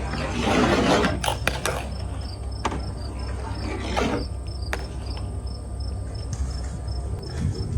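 Marbles rolling down a marble-run track: a rush of rolling in the first second and a half, then separate sharp clicks as they knock against the track pieces. Crickets chirp steadily in the background, about three chirps a second.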